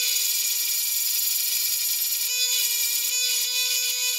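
Bench grinder running with a steel drill bit held against the flat face of its stone: a steady motor hum under a harsh, high grinding hiss, as the bit's reground cutting edge is flattened.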